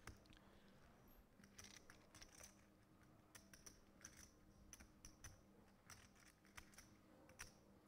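Faint, irregular clicking of poker chips being handled and riffled at the table, over a low steady hum.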